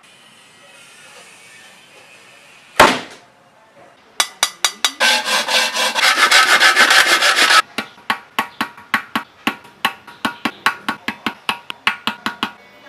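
Hand work on a workpiece: a single sharp knock, then a long run of quick scraping strokes about four a second, packed densest in the middle.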